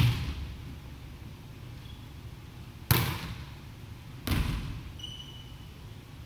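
Volleyball bouncing on a wooden gym floor: three separate thuds, the second about three seconds after the first and the third a second and a half later, each ringing out in the hall's echo.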